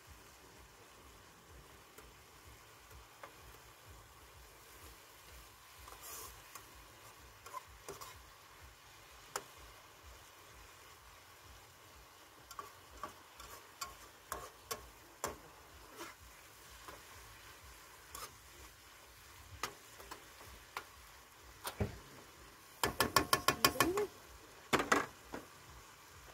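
A spoon stirring curry in a pot on a portable gas stove, with scattered clicks and scrapes of the spoon against the metal over a faint sizzle. Near the end comes a quick run of about ten sharp taps, like the spoon being knocked on the rim of the pot.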